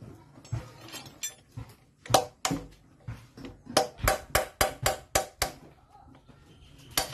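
Hand tool working at a motorbike's front disc brake caliper: sharp metallic taps with a short ring, two about two seconds in, then a quick run of about eight at roughly four a second, and one more near the end.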